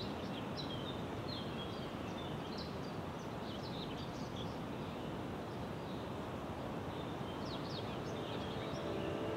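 Dawn chorus of songbirds: many short, high chirps and whistles, heard one over another, over a steady rushing background noise. Music fades in at the very end.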